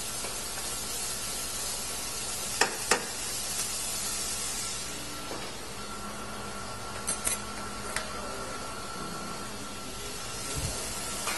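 Chopped onions, bell peppers and scotch bonnet pepper sizzling steadily in hot oil in a frying pan on a gas stove, with a few sharp clicks a few seconds in.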